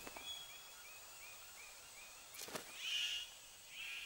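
Rainforest ambience: a short animal chirp repeating about three times a second, a sharp click about two and a half seconds in, and two louder short calls near the end.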